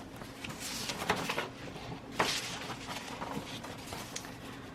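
Items from a subscription box being handled: a few brief rustles and scrapes, the main ones about a second and two seconds in, with small clicks between.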